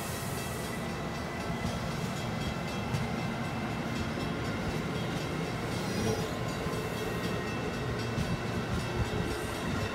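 Amtrak Amfleet passenger cars rolling past: a steady rumble of steel wheels on rail, with scattered clicks as the wheels cross rail joints.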